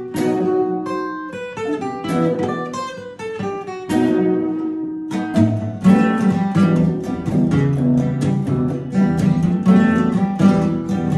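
Acoustic guitar playing a picked intro of single notes; about five seconds in, a lower electric guitar part joins and the playing becomes fuller, with strummed chords over low notes.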